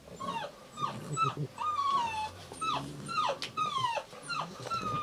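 Shar-Pei puppy whimpering: a quick run of about a dozen high, thin whines, most of them falling in pitch, two of them drawn out.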